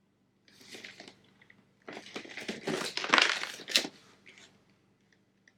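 A cardboard figure box being handled and opened, crackling and scraping in two bursts: a short one about half a second in and a longer, louder one from about two to four seconds in.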